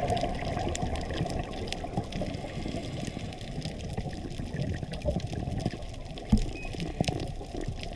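Underwater ambience picked up by a dive camera in its housing: a steady low water rush with scattered sharp clicks and crackles, and one louder knock about two-thirds of the way through.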